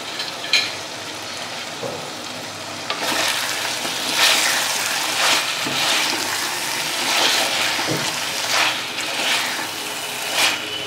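Chicken and masala sizzling in a pot while being stirred, with a scraping stroke about once a second from about three seconds in over a steady frying hiss.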